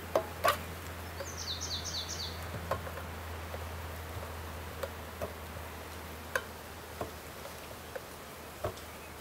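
Scattered knocks and taps of a wooden bee package being handled on top of a hive, the loudest two right at the start, over a steady low hum. About a second in, a songbird gives a short trill of five quick notes.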